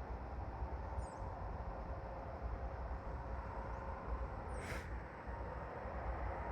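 Distant Airbus A220-300 jet engines (Pratt & Whitney PW1500G geared turbofans) running with a steady low rumble and a faint steady whine, getting louder near the end as the jet begins its takeoff. A small bird chirps briefly twice.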